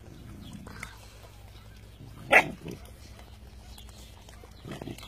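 Cane Corso puppy giving one short, loud bark about two and a half seconds in, and a quieter one near the end, while the puppies feed on raw meat.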